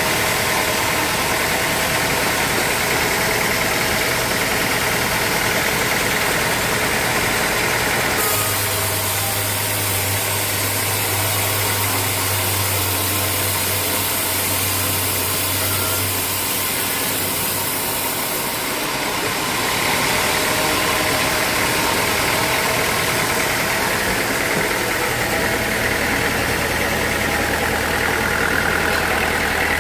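Sawmill machinery running steadily. From about eight seconds in to about nineteen seconds, a higher hiss and a low hum join it, then it settles back to its earlier sound.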